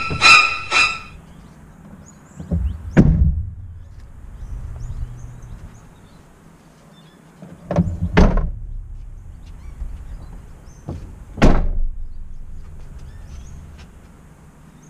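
A quick series of electronic beeps, about three a second, stopping about a second in, then a few dull thumps around the car's cabin: one a few seconds in, a close pair near the middle and another a little later.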